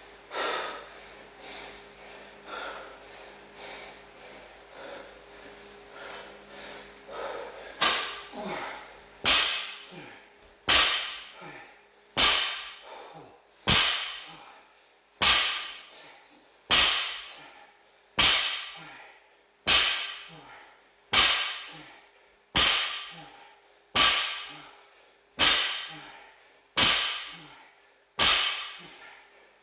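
A 60 kg barbell loaded with rubber bumper plates is set down on a rubber floor mat, rep after rep of deadlifts. Starting about eight seconds in there are about fifteen sharp thuds, one roughly every second and a half, each with a short ring from the bar.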